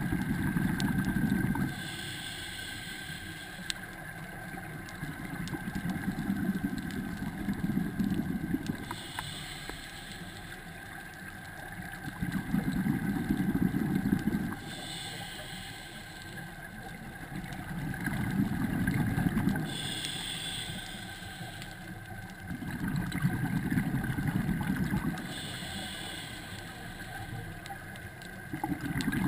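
Scuba diver breathing through a regulator underwater: a short hiss on each inhale and a long bubbling rumble of exhaled bubbles, repeating about every five to six seconds.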